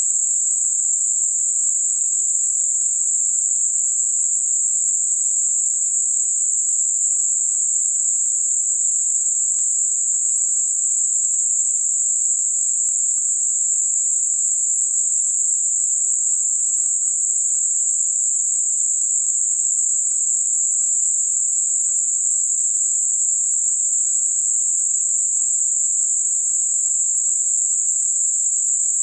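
Gaussian narrowband noise centred on 7.5 kHz, a tinnitus-masking sound: a steady, unchanging high-pitched hiss.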